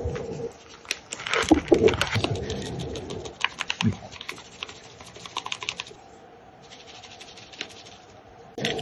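Paper bag of growing substrate rustling, then the dry crumbly substrate poured from it, a crackling patter of grains landing in small plastic planter pods; the crackles are densest in the first few seconds and thin out after.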